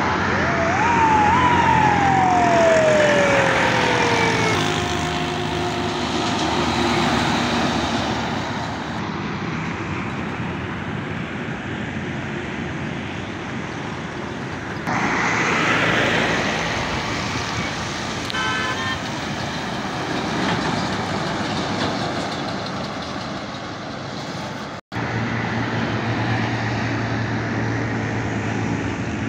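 Heavy trucks driving past on a highway: diesel engines running with tyre and traffic noise, changing abruptly a few times. Near the start a high tone rises briefly, then slides steadily down over about three seconds.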